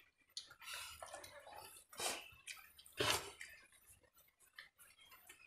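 Wet eating sounds of people eating rice and curry with their hands: fingers squishing and mixing rice, lips smacking and chewing. Short scattered sounds, with two louder ones about two and three seconds in.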